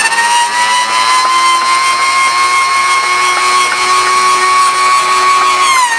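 Start-up of Brutus's 46-litre 12-cylinder BMW aero engine: a loud, steady high-pitched whine that dips slightly in pitch near the end.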